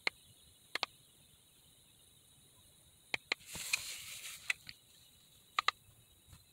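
Plastic buttons of a handheld OBD2 code scanner clicking as they are pressed, mostly in quick press-and-release pairs, several times over a few seconds in a quiet cabin with the engine off. A brief rustle of handling comes a little past the middle.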